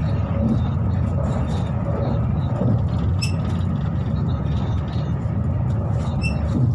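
Passenger train running, a steady low rumble, with two brief high-pitched chirps about three seconds apart.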